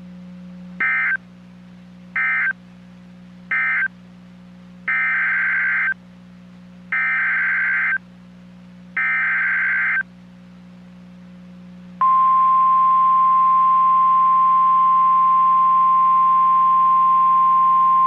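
NOAA Weather Radio SAME alert signalling. Three short end-of-message data bursts, then three one-second header bursts of buzzing digital data tones, each about two seconds apart. About twelve seconds in, the loud steady single-pitch weather radio warning alarm tone starts, announcing a new alert.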